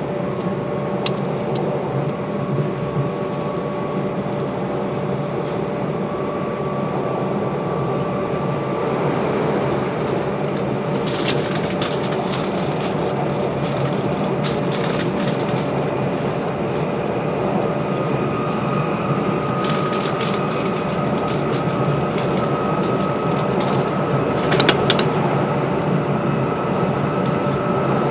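Class 387 electric multiple unit running between stations, heard inside the passenger saloon: a steady rumble of wheels on rail with a faint motor whine that rises slowly in pitch. Bursts of sharp clicking and rattling come about a third of the way in and again past the middle.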